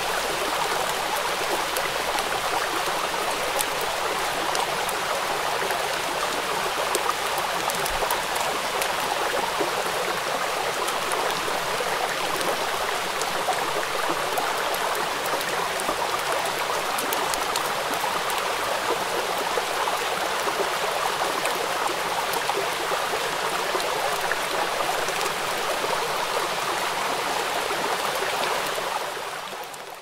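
Steady rain falling onto a flowing river: a dense patter of drops over the rush of running water, fading out near the end.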